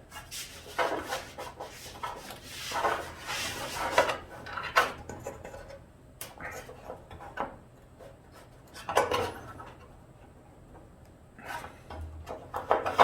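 Irregular bouts of metal clinking and scraping: a loose nut and small steel parts being worked and rattled inside a sheet-metal hood hinge mount.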